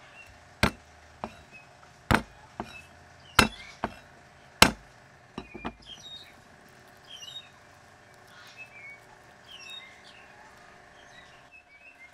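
Sharp knocks on a wooden chopping board, about eight of them in the first six seconds, as garlic cloves are crushed on it. Small birds chirp after that.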